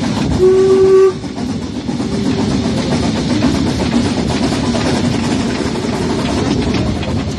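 Harz narrow gauge steam locomotive sounding its whistle: one short, steady blast about half a second in, then a fainter brief note about two seconds in, over the steady running noise of the train. The whistle answers a 'P' whistle board beside the track.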